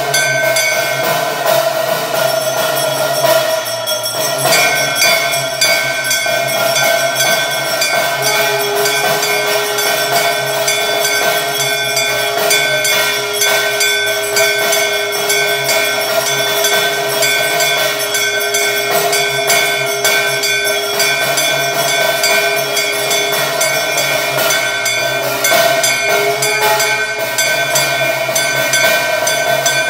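Temple bells and percussion ringing without a break for the arati: rapid, dense strikes with many metallic ringing tones layered over each other. A steady lower tone is held through the middle.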